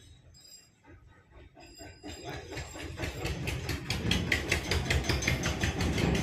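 Rapid, even clattering of metal, starting about two seconds in and growing louder.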